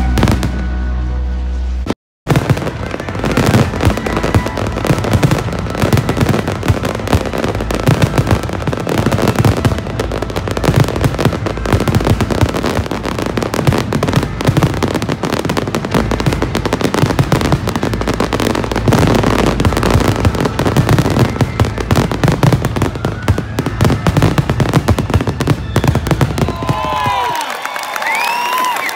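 Aerial fireworks going off in a dense, rapid run of crackles and bangs, after a short stretch of music at the start. Near the end the bursts stop and a crowd cheers, whistles and claps as the show ends.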